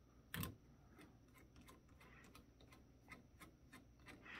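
Faint clicks and light taps of a small hand tool and loose parts being handled inside an open steel rack-mount chassis, with one louder knock about half a second in.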